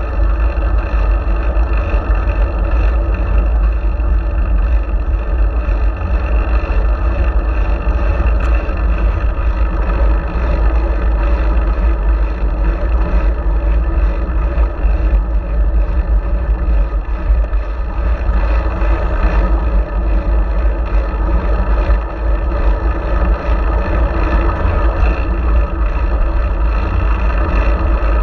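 Steady, loud rumble of wind and road noise on a GoPro Hero4's microphone while riding a fixed-gear bicycle at speed.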